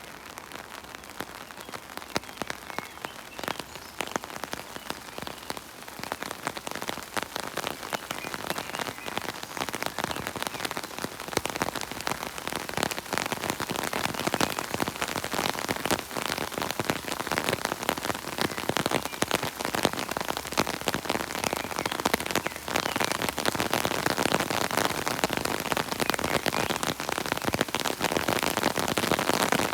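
Steady rain falling, a dense patter of many drops, growing louder over the first ten seconds or so and then holding steady.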